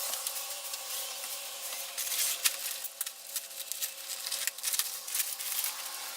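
Dry coop bedding rustling and being scattered, with irregular scratchy ticks and scrapes over a faint steady hum.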